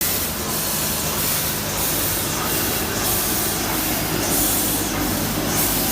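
A steam locomotive at close range: a steady loud hiss of steam over a low mechanical hum, with the hiss surging again and again.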